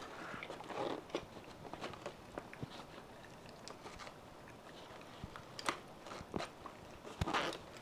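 Pet monkey rummaging in a nylon duffle bag: fabric rustling and scattered small clicks of buckles and zippers, with a few louder rustles about a second in and again near the end.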